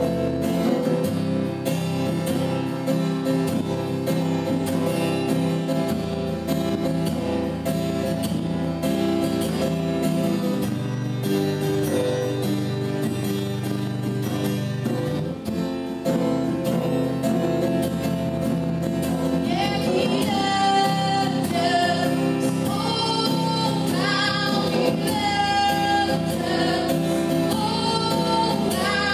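Worship song on acoustic guitar with a woman singing; her voice comes in strong about two-thirds of the way through over the sustained chords.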